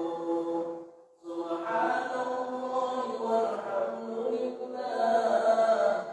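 A man's voice chanting post-prayer dhikr over the mosque microphone in long, held melodic phrases. There is a short pause for breath about a second in and another near the end.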